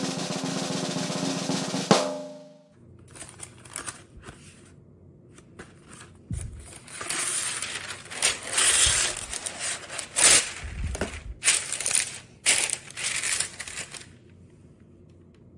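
A short drum-roll music sting ending on a sharp final hit about two seconds in. Then sheets of parchment paper crinkle and rustle in irregular bursts as they are pulled from a roll box and spread over a metal sheet pan. This fades near the end.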